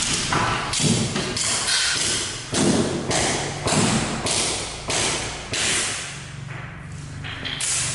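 Repeated sharp knocks, roughly one or two a second, each followed by echo off a bare room. They thin out late on, with one last knock near the end.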